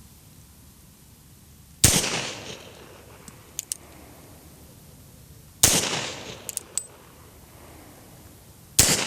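Three single pistol shots from a Beretta 96D double-action-only .40 S&W pistol, about three to four seconds apart, each with a short echo trailing off. A couple of faint clicks follow the first two shots.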